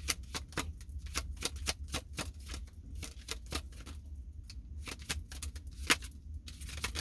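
Tarot cards being shuffled by hand: a quick run of sharp card snaps and flicks that thins out about halfway through, over a steady low hum.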